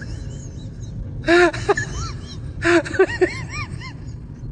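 A person's voice crying out in short wailing, whimpering cries that rise and fall in pitch, in two bursts about a second and three seconds in, over a steady low rumble.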